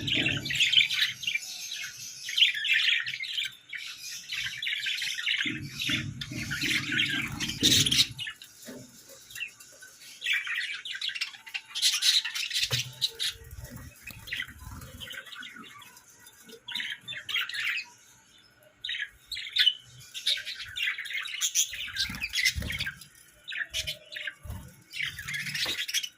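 Budgerigars chirping and warbling in repeated bursts of fast chatter, with short squawks and quieter gaps. A lower rustling noise joins in for about two seconds, roughly six seconds in.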